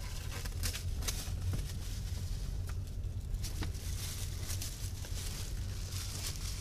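A taped-up plastic bag crinkling and tearing in quick, irregular crackles as something is pulled out of it, over the steady low rumble of a car driving.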